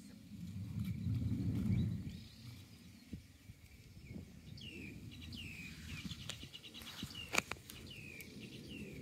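Small birds calling in short falling chirps, with a quick rattling trill in the middle. There is a low rumble in the first two seconds and a few sharp clicks, the loudest about seven seconds in.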